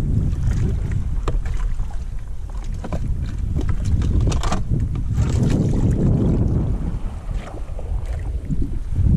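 Wind buffeting the microphone, with water sloshing against a plastic fishing kayak's hull. Scattered small clicks and knocks of fishing gear being handled.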